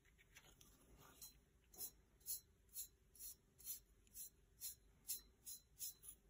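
Faint, rhythmic scratching of a chip brush's bristles stroking back and forth over the ink on a painted tumbler. The strokes come about two a second from about two seconds in.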